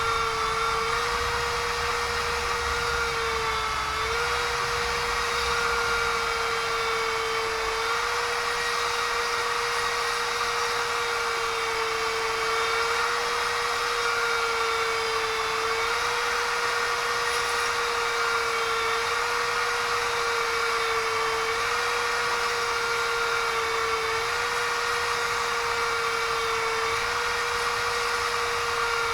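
Small high-speed electric drill running steadily with a high whine while drilling small holes, its pitch dipping briefly about every three seconds as the bit bites in and loads the motor.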